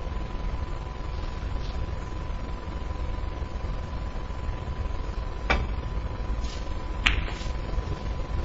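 Snooker shot: the cue tip strikes the cue ball with a click about five and a half seconds in, then a sharper, louder click about a second and a half later as the cue ball hits a red, over a steady low hum.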